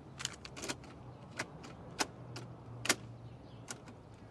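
Boombox buttons and controls clicking: about seven sharp, irregular clicks over a low steady hum.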